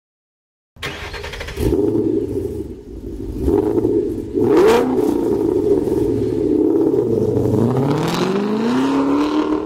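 Car engine running and revving, starting about a second in; in the second half its pitch drops, then climbs steadily.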